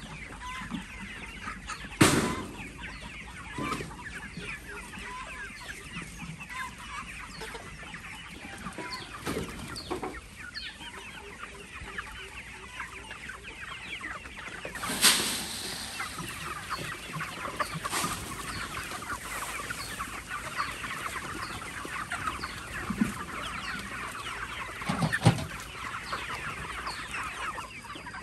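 A flock of chickens clucking and cheeping without pause, many short calls overlapping, with a few sharp knocks, the loudest about two seconds in.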